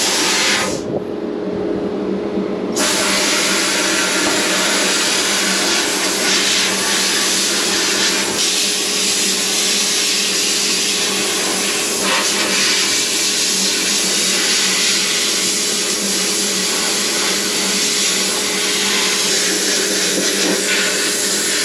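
Sandblast cabinet blasting with compressed air: a loud, steady hiss of air and abrasive over a constant hum. The blast stops for about two seconds near the start, then runs on without a break.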